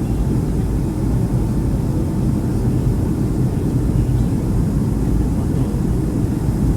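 Steady cabin noise inside a Boeing 757 in flight on its approach: an even, low rumble of the engines and rushing air.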